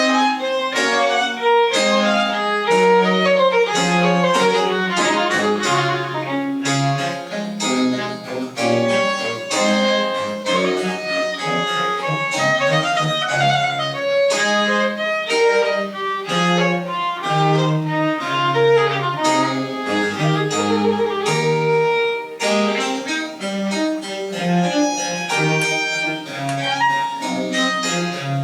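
Baroque chamber ensemble playing French Baroque music: a violin line over a lower bass part, with quick, crisp note attacks throughout.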